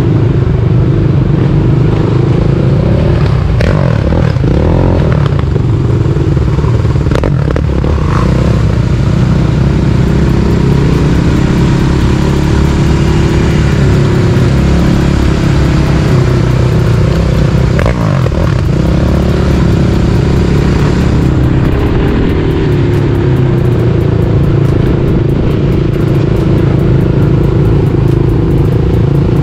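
Steady, loud road and engine noise of a moving vehicle, deep and continuous, with a couple of brief sweeps in pitch about four seconds in and again near the middle.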